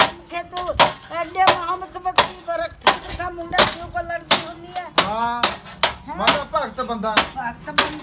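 Hammer beating a dented sheet-metal tin in a steady rhythm, about one blow every 0.7 seconds, with a voice going on over the strikes.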